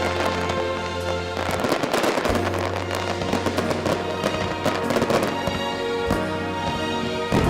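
Fireworks crackling and bursting in quick succession, with a few sharper bangs, over music with sustained notes.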